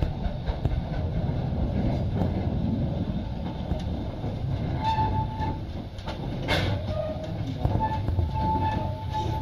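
Vale of Rheidol narrow-gauge steam tank locomotive No. 7 drawing slowly nearer with a steady low rumble. Brief thin high tones sound about halfway and again near the end, with a sharp click between them.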